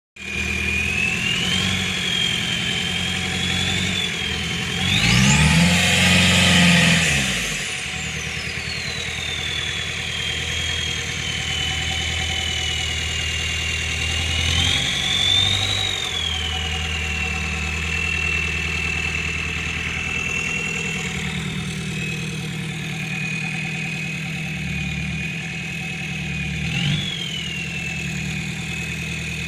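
VW AAZ 1.9 turbodiesel on a straight-pipe exhaust idling, its K03 turbo whistling steadily over the engine note. One rev about five seconds in sends the whistle rising steeply and falling away again, and two smaller blips follow later.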